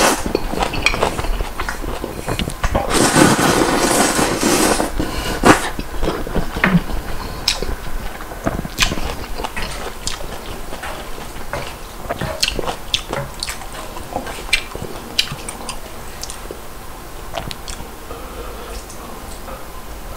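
A person slurping instant ramen noodles, with a long, loud slurp about three seconds in. Then chewing with many short wet clicks and smacks.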